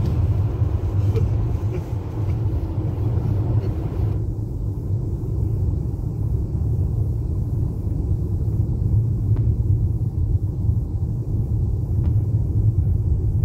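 Steady low road-and-engine rumble of a car at highway speed, heard inside the cabin. The thinner hiss above it drops away abruptly about four seconds in.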